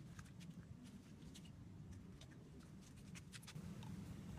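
Near silence: room tone with a faint steady low hum and a scatter of faint light clicks.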